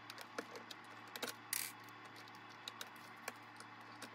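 Faint scattered clicks and a brief scrape of small plastic parts as white port plugs are pulled from a reverse osmosis unit's water fittings with a small plastic removal tool, over a low steady hum.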